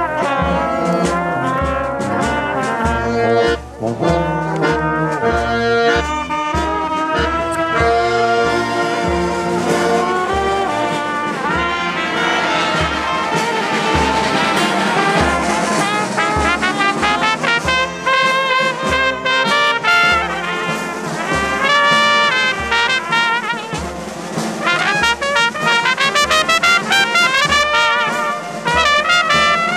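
A marching band of trumpets and other brass, with large hand drums and an accordion, plays a traditional march. The drums keep a steady beat of about two strokes a second under the brass melody.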